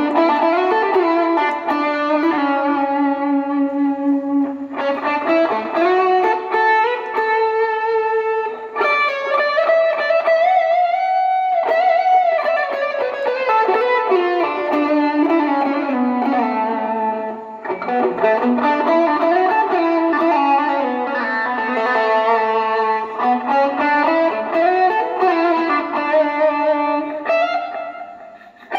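PRS-style electric guitar played through a Mosky overdrive pedal: a melodic single-note lead with sliding and bending notes in an overdriven tone, fading near the end.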